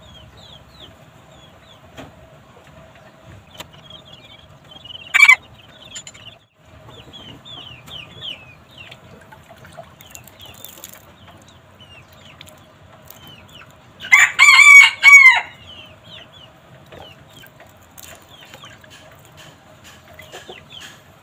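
A rooster crows once, loud and about a second and a half long, about two-thirds of the way through, and gives a short sharp call about five seconds in. In between, water drips and trickles faintly as a red junglefowl cock is wetted by hand, over a faint steady hum.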